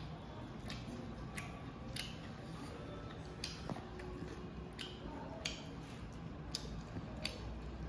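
Close-up eating sounds of noodles being slurped and chewed, with sharp wet mouth clicks and smacks coming irregularly, about one a second.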